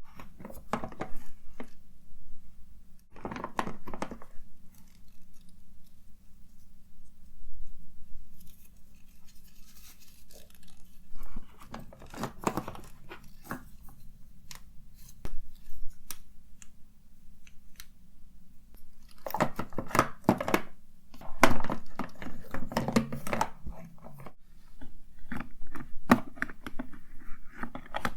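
Cosmetics and containers being handled, tapped and rummaged through: scattered sharp clicks and taps with short bursts of rustling, the busiest stretch about two-thirds of the way in, over a steady low hum.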